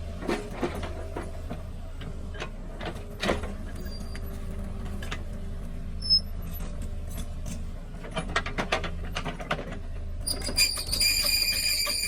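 Excavator engine running steadily, with scattered knocks and clanks throughout and a high metallic squeal near the end.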